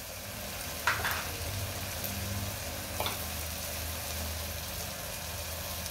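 Onion-tomato masala sizzling in oil in an aluminium pressure cooker, with powdered spices sprinkled on top. There is a steady frying hiss, with two faint ticks about one and three seconds in.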